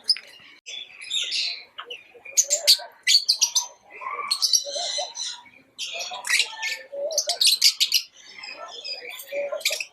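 Lovebirds chirping: bursts of rapid, shrill, high-pitched chirps one after another, with some lower chattering notes between them.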